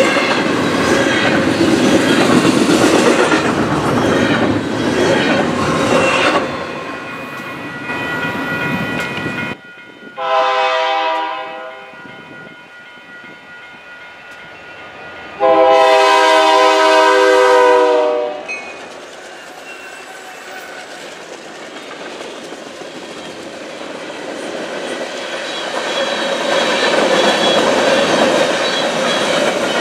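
Union Pacific double-stack container train rolling past with steady wheel clatter, which stops abruptly about ten seconds in. A diesel locomotive horn then sounds twice: a short blast that fades, then a longer, louder one of about three seconds. A second freight train of covered hoppers then approaches and rolls past, its rumble and wheel clatter growing.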